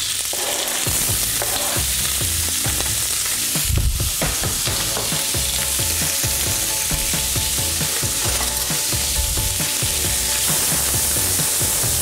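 Bacon, onion and garlic sizzling steadily as they fry in oil in a frying pan, stirred now and then.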